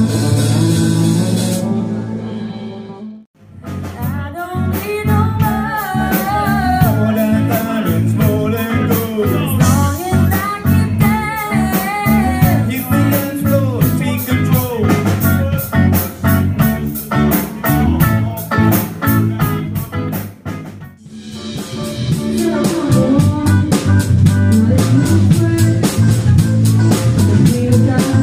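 Live rock band recorded on a mobile phone: electric guitar, bass guitar and drums with a woman singing. The music cuts out briefly about three seconds in and again after about twenty seconds as it jumps between songs, the last part led by guitar over a steady beat.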